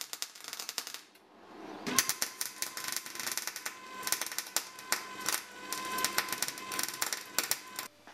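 MIG welder arc crackling and spitting as beads are laid on steel angle and box section, in two runs broken by a short pause about a second in. A steady high whine sounds under the second run.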